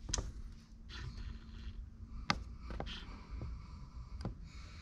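Light clicks and taps of a fishing rod being handled and turned, the sharpest about halfway through, over a faint steady hum.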